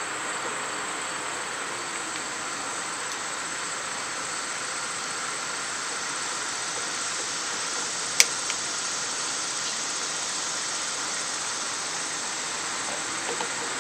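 Steady high-pitched drone of insects outdoors, running on evenly, with a single sharp click about eight seconds in.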